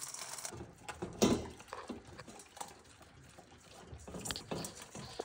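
Labrador retriever eating kibble from a stainless steel bowl: scattered crunches and clinks against the metal, with a louder knock about a second in.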